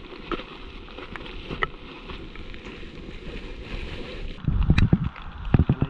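A steady rush of running water with scattered small clicks. About four and a half seconds in, loud low thumps and rumble of wind and handling on the microphone take over.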